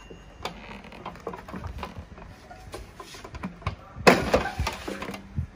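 Light plastic clicks and knocks of an air fryer being handled, then about four seconds in a loud sliding, scraping rush as the basket drawer is pulled out of the Lock&Lock air fryer's plastic body.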